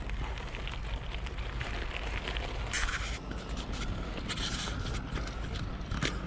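Riding noise from a bike: a steady low wind rumble on the microphone with many small clicks and rattles, and two short bursts of hiss about three and four and a half seconds in.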